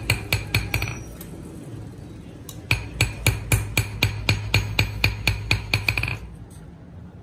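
Hand hammer beating a thin steel blade held in tongs on an anvil, each blow sharp and ringing. A quick run of blows in the first second, then a steady run of about four a second from about two and a half seconds until about six seconds in, over a steady low hum.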